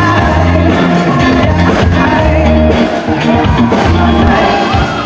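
Live rock band playing a loud instrumental passage during a sound check, with held bass notes under a steady drum beat.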